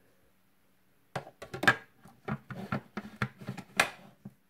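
Dry, shredded vegan meat pieces being handled into a clear plastic food processor bowl: an irregular run of dry clatters and rustles against the plastic, starting about a second in.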